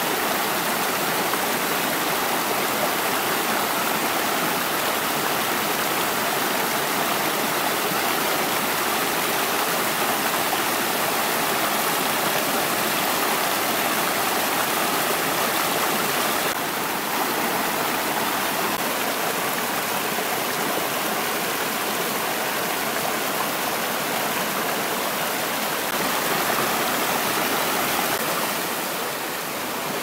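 Small forest stream running over stones and a low cascade: a steady rushing babble of water. Its tone shifts slightly a little past halfway and again near the end.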